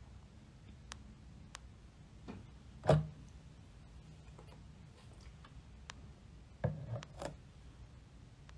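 A plastic water bottle being handled and drunk from: faint clicks and rubbing, a sharper knock about three seconds in, and a few softer knocks around seven seconds in.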